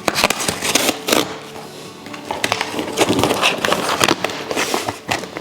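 A cardboard shipping box being opened and its packaging handled: an irregular run of crackles, rustles and scrapes from cardboard and plastic.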